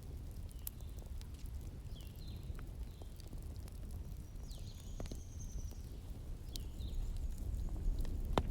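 Wood fire crackling, with scattered sharp pops over a steady low rumble. Short high chirping whistles come several times, one of them longer, about halfway through.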